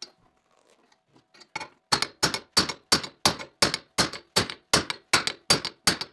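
A hammer striking steel angle iron welded onto a pipe held in a vise: a fast, even run of about a dozen sharp metal-on-metal blows, about three a second, starting about two seconds in. This is a clip test, beating the angle toward its one-sided MIG weld to test the weld's toughness, with the angle iron bending.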